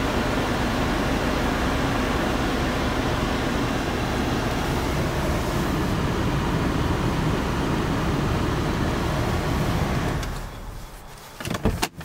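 Land Rover Discovery's V6 diesel idling in park, heard from inside the cabin as a steady hum together with the climate fan. About ten seconds in the hum drops away, and a few sharp clicks and knocks follow.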